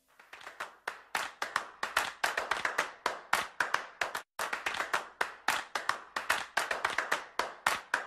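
Hands clapping in a quick run of sharp claps, several a second, with a brief break a little past the middle.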